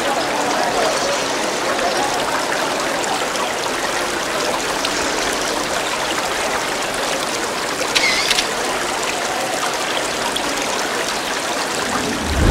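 Water from a public fountain's spouts splashing and trickling steadily into its stone basin. About eight seconds in there is one brief high-pitched squeak.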